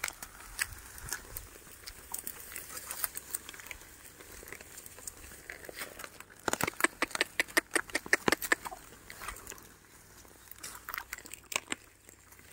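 Irregular crunching and rustling of grass and earth as a carabao-drawn wooden plow and the plowman move through a weedy field, with a dense run of sharp crackles about six to eight and a half seconds in.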